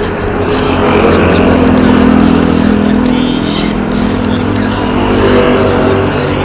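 A motor vehicle's engine running close by over road and wind noise, growing louder over the first two seconds and easing off after about four.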